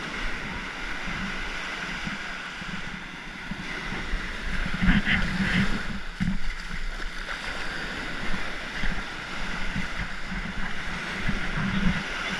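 Wind buffeting the microphone over a steady rush of outdoor noise, with a few louder gusts about five seconds in.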